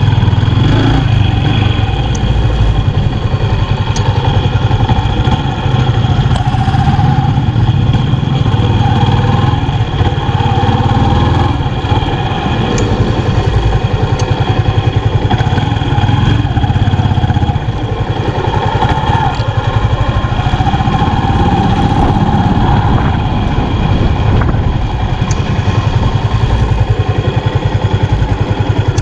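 Motorcycle engine running steadily while the bike is ridden along a street, with a heavy low rumble.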